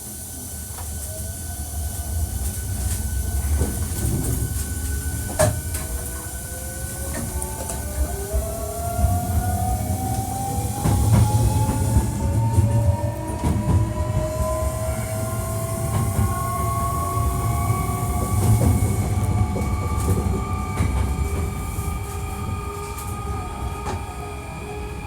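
Hankyu 1300 series electric train accelerating away from a station, heard from inside the car: the traction motor's whine rises steadily in pitch over the rumble of the wheels on the rails, with occasional sharp clicks.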